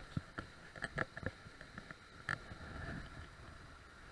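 Handling noise of a small perch being held at the stream's edge: a run of light clicks and knocks in the first second or so and one more about two seconds in, over the faint rush of the stream.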